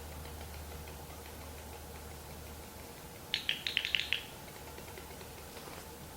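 A short burst of about seven rapid chattering notes from an animal in the forest, lasting under a second, a little past halfway, over a steady low rumble.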